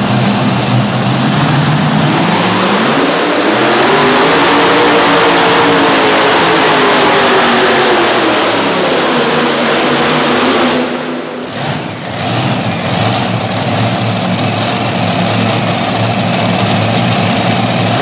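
Multi-engine supercharged V8 modified pulling tractor making a pull at full throttle. The engine note climbs over a couple of seconds, holds, then sinks as the revs sag under the growing sled load. About eleven seconds in the throttle is cut and the engines drop to a steady idle.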